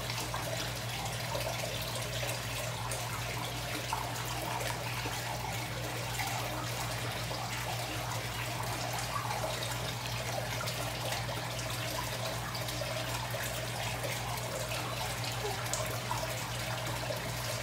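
Steady trickling and running water in a large indoor fish pond, over a low steady hum.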